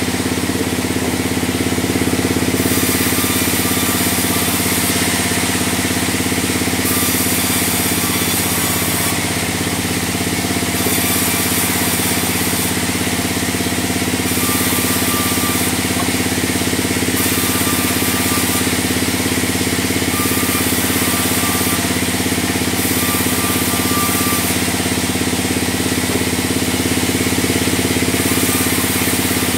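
Band sawmill running steadily with a constant machine hum, while its blade cuts through logs; a high hiss swells and drops every couple of seconds.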